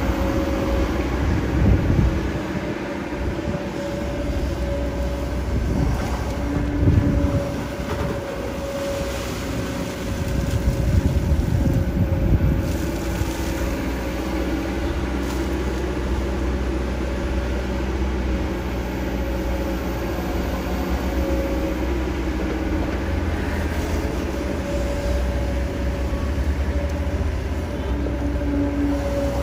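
Kobelco SK200 hydraulic excavator working: its diesel engine runs steadily under load with a constant whine, swelling a few times as it dumps mud into a dump truck and swings back to dig.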